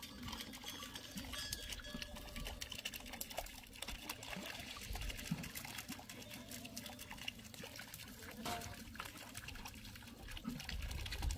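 Water trickling and pouring steadily.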